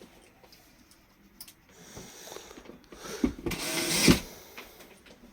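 A small power tool motor runs briefly, loudest about four seconds in, with a few sharp knocks around it.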